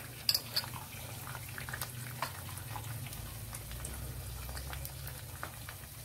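Beaten egg frying in hot oil with sliced onions in a stainless steel pot: steady sizzling with scattered small pops. Two brief clinks in the first second as the glass bowl touches the pot while the egg is poured in.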